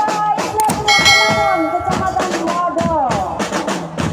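Marching drum band playing: drums beating a fast, steady rhythm under a melody, with a bell lyra (marching glockenspiel) ringing out bright struck notes about a second in.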